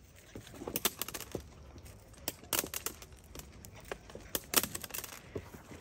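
German Shepherd puppies eating corn from a metal tray: irregular crunching and sharp clicks as they chew the kernels and knock against the tray.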